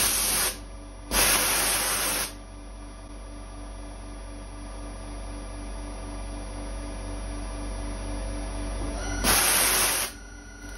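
CNC mill spindle running with a steady hum of several fixed tones, turning nylon stock while a stationary drill bores into it. Loud hissing bursts break in at the start, again about a second in for a second or so, and once more near the end.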